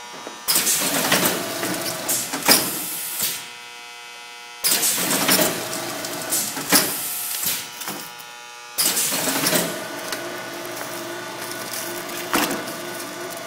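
Shanklin A-series automatic L-sealer wrapping film around produce trays and running in a repeating cycle about every four seconds. Each cycle starts abruptly with a loud burst of mechanical noise and sharp clicks, then settles to a steadier running hum.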